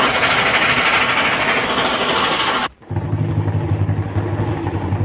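Cartoon sound effect of a steam train rushing past with a loud hissing, rattling noise that cuts off abruptly a little over halfway through. A steady low droning hum follows.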